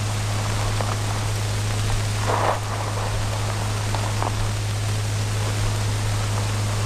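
Steady hiss with a low steady hum underneath, and a brief rustle of bedclothes about two and a half seconds in as a man turns over in bed.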